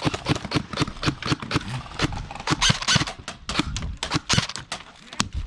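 Quick, uneven footsteps of a person running, several steps a second, thinning out and growing quieter near the end.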